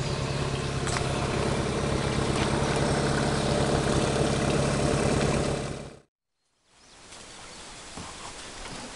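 Small boat outboard motor idling steadily. About six seconds in the sound drops out completely, then returns as a fainter steady hum.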